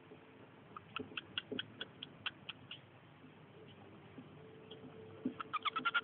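Cockatiel giving short, clipped chirps: a run of about ten at roughly five a second, then, about five and a half seconds in, a faster chattering run of quick chirps.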